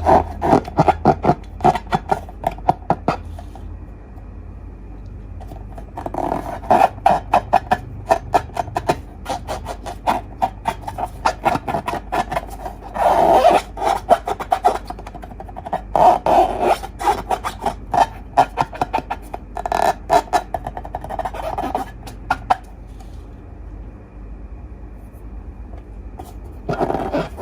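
Slime being squished and kneaded by hand: rapid wet clicks and small pops in bursts of a few seconds, with short quieter pauses between them.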